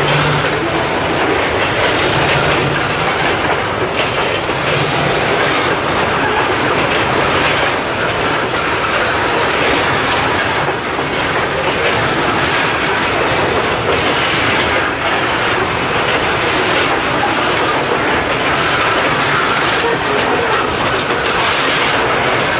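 Hooded steel-coil cars of a Norfolk Southern freight train rolling past close by: a steady, loud rolling noise of steel wheels on rail. A faint, thin high squeal comes through briefly about six seconds in and again near the end.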